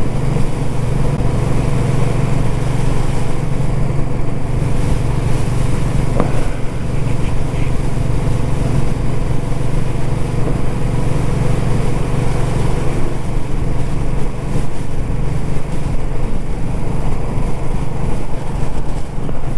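Royal Enfield Classic 350's single-cylinder engine running at a steady cruise, heard from the rider's seat along with road noise.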